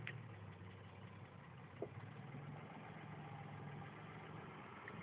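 Isuzu Rodeo SUV's engine running faintly at a low, steady idle as it creeps down a steep dirt slope, with one short knock about two seconds in.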